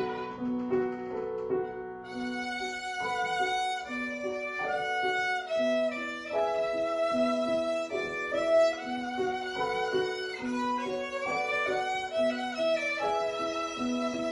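Violin playing a classical piece: a steady run of notes that keeps returning to the same low note about once a second.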